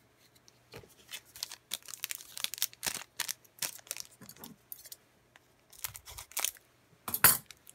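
Foil trading-card pack wrapper crinkling in the hands as it is picked up and handled, then scissors cutting the top of the pack open near the end, the loudest sound.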